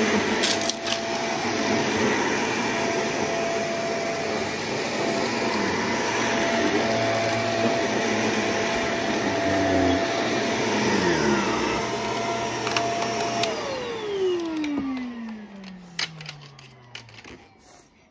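Shark upright vacuum cleaner running steadily as it is pushed over carpet. About thirteen seconds in the motor cuts out and winds down with a falling whine, followed by a few light clicks.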